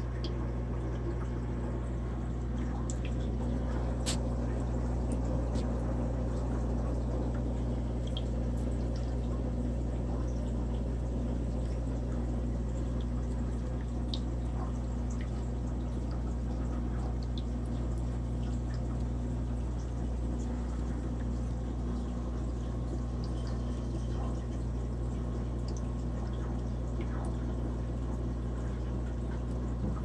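Aquarium filter running: steady trickling of water with a low steady hum and scattered small drips.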